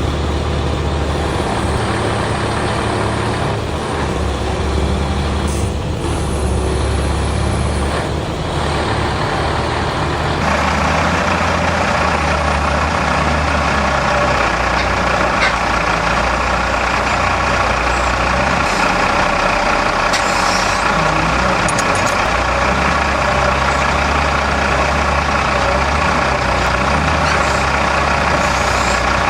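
Heavy diesel engine of a wheel loader working hard under a very heavy load. About ten seconds in, the sound changes abruptly and becomes fuller and steadier.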